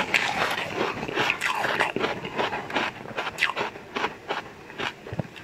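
Close-miked chewing of a mouthful of sweets, many quick, irregular crisp crunches and mouth clicks that thin out and grow quieter after about three seconds.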